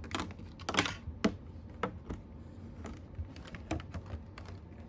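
Clear plastic clamshell packaging being handled while cards are pulled out of it: irregular light plastic clicks and taps, about a dozen of them, the loudest cluster about a second in.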